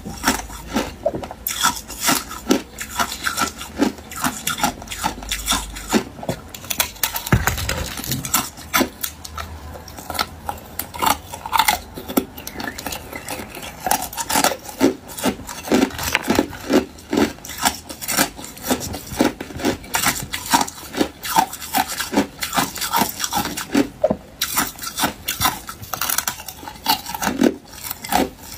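Hard ice cubes crunched and cracked close to the microphone: a steady run of sharp crunches, a few a second.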